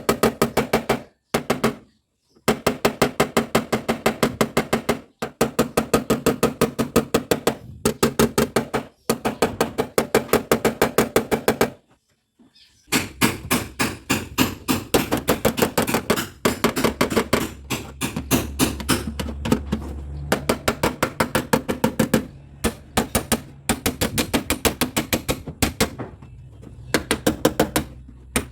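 Rapid hammer blows on the dented steel body of a Toyota Yaris, about five or six strikes a second in runs broken by short pauses: panel beating to knock a crumpled inner rail and fender back into shape. A low steady hum runs underneath in the second half.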